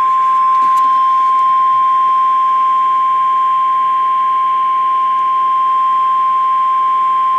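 NOAA Weather Radio 1050 Hz warning alarm tone: one steady, unbroken high beep over light receiver hiss, the alert that a weather warning, here a severe thunderstorm warning, is about to be read.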